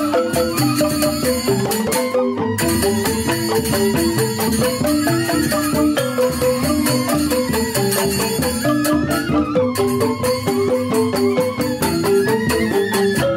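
Joged bumbung gamelan, an ensemble of bamboo xylophones (grantang) with a drum, playing fast, interlocking repeating figures of many short notes a second.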